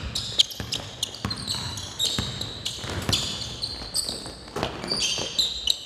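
Basketballs bouncing on a hardwood gym floor in a run of sharp thuds, mixed with many short, high-pitched squeaks of sneakers on the court.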